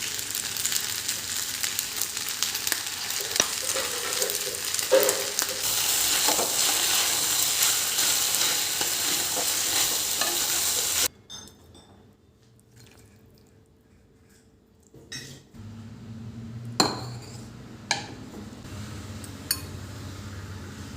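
Food sizzling as it fries in a pan, with a utensil clicking and scraping against the pan as it is stirred. The sizzling cuts off suddenly about halfway through, leaving a faint low hum with a few sharp knocks.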